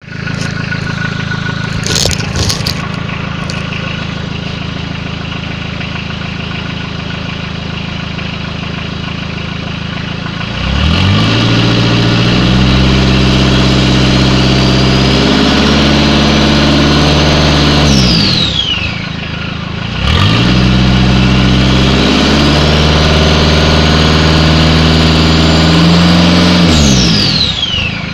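Citroen BX's XUD turbodiesel engine with a variable-vane (VNT) turbo, running on a bare downpipe with no exhaust: it idles, then is revved and held twice for about seven seconds each. Each time a turbo whistle climbs as it spools and then drops sharply as the revs fall.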